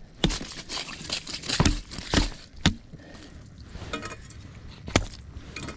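A run of sharp knocks, about five, as a freshly caught whitefish is bashed on the head on the ice to stun it before unhooking; some blows miss the fish and strike the ice.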